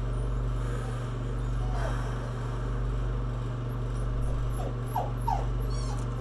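A few brief, high whimpering whines, one about two seconds in and a pair near five seconds, over a steady low hum.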